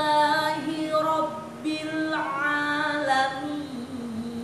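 Melodic Quran recitation (tilawah) by a single unaccompanied voice, holding long notes through a slow melody, with a brief break for a new phrase near the middle.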